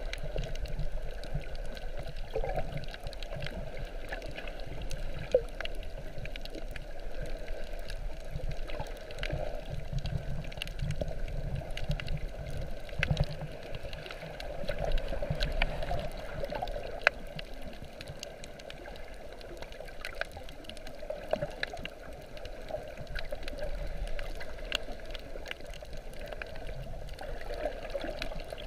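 Muffled underwater sound picked up by a GoPro in its waterproof housing while snorkeling over a reef: a steady wash of water with scattered sharp clicks.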